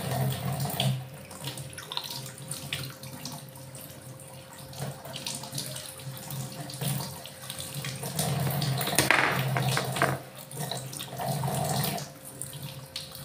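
Tap water running into a kitchen sink and splashing over whole raw fish as they are rinsed by hand on a metal plate. The splashing grows louder about eight seconds in and again near the end.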